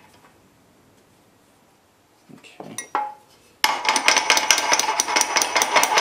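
Hammer tapping rapidly on a steel key at a mini bike's jackshaft sprocket hub, driving the key into its keyway: quick ringing metallic clinks, several a second, starting a little past halfway.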